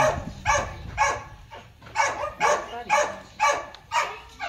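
Chow chow panting hard at close range in quick, even huffs, about two to three a second.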